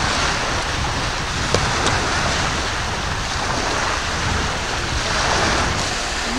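Sea surf washing on the shore, with wind rumbling on the microphone. A single short click about one and a half seconds in.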